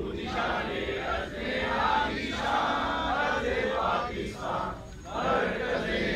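A crowd of men chanting slogans in unison, in short shouted phrases with brief breaks between them.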